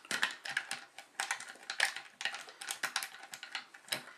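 Paperclip rake scraping in and out of a pin-tumbler lock's keyway under light tension from a paperclip tension wrench: a quick, uneven run of small metallic clicks and scrapes as the pins are raked.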